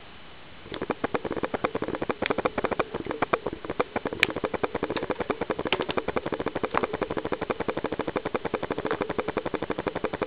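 Rapid, even mechanical pulsing, a dozen or more pulses a second, starting suddenly about a second in and then running steadily, like a small engine or machine running.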